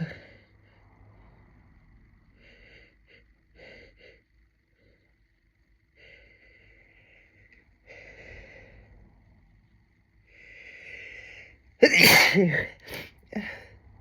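A woman's induced sneeze: several short breaths in over about ten seconds, the last one longer and louder, then one big sneeze about twelve seconds in, followed by two short after-sounds.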